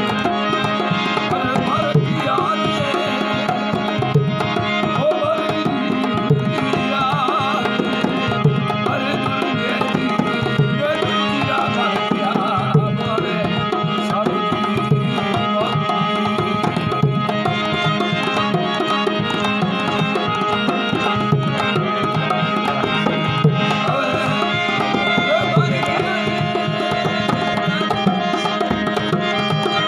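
Marwari folk song: a hand drum keeps a steady beat under a continuous held drone, with melodic phrases bending in and out over it.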